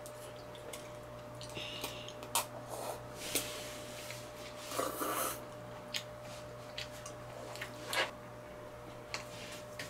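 Children slurping and chewing cup ramen noodles: a few short slurps and scattered small clicks, over a faint steady hum.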